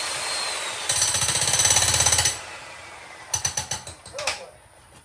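Makita HM1810 electric demolition hammer breaking up a concrete slab. It hammers hard in a rhythmic burst that stops a little over two seconds in, followed by a few sharp clinks and rattles.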